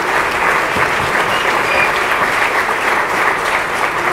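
Audience applauding, many hands clapping steadily at the end of a talk.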